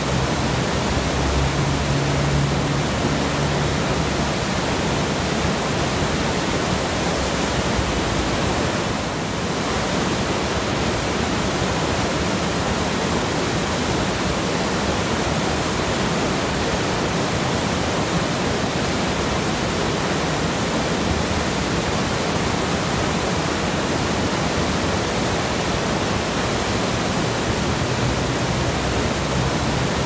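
Whitewater rapids of a river rushing and churning over rocks: a steady, dense rush of water with no break.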